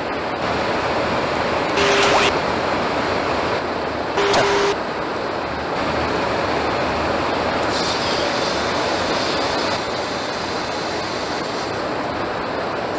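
Steady rushing airflow and engine noise inside a KC-135 Stratotanker's boom operator station during aerial refuelling. Two short louder bursts come about two and four seconds in.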